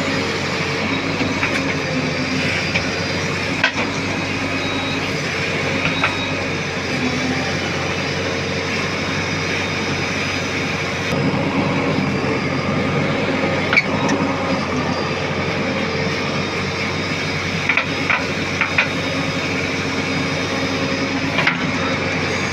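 JCB backhoe loader's diesel engine running steadily at work, with a few short, sharp knocks scattered through it.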